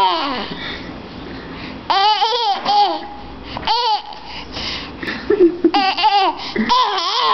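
Baby laughing in several short, high-pitched bursts a second or two apart.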